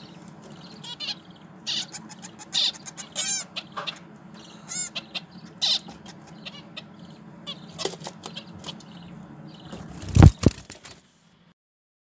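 Nestling birds in a nest box giving short, high begging chirps and squeaks at irregular intervals over a low steady hum. A loud double thump comes about ten seconds in, and the sound cuts off soon after.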